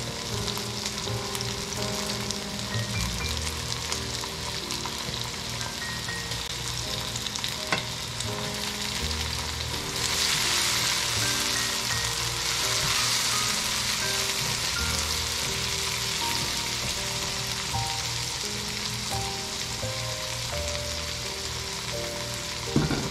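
Chopped tomato sizzling as it fries in oil with garlic paste and onions in a pan; the sizzle gets louder about ten seconds in. A short clatter near the end as a lid goes on.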